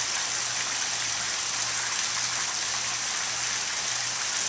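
Pool fountain jets arcing into a swimming pool: a steady, even hiss of splashing water, with a low steady hum underneath.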